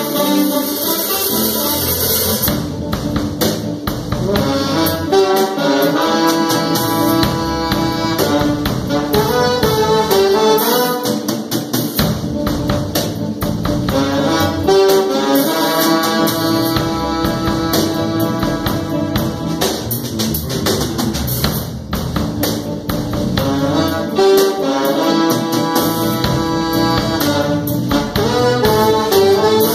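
A jazz-fusion band rehearsing: a trombone plays a moving melodic line over busy percussion, with the rest of the band underneath.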